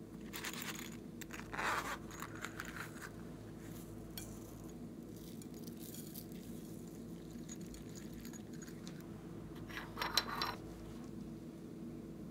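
Plastic containers being handled and knocked against a glass bowl: light clicks and scrapes, with louder short clatters about two seconds in and again about ten seconds in, over a faint steady hum.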